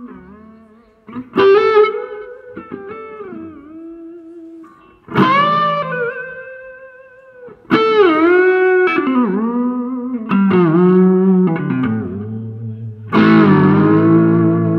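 Paul Reed Smith Studio electric guitar played through an amp. About six picked notes and chords each have their pitch dipped down and brought back up with the floating tremolo bar. The last is a loud, ringing chord near the end.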